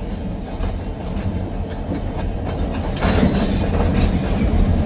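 Freight train rolling past: a steady low rumble of the cars with wheel clicks, growing louder about three seconds in.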